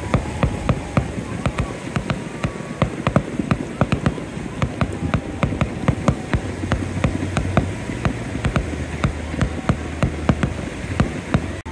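Fireworks going off: a dense, irregular stream of sharp pops and crackles, several a second, over a low steady hum.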